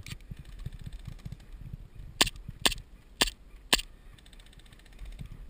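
Airsoft gun firing four single shots about half a second apart, each a sharp crack.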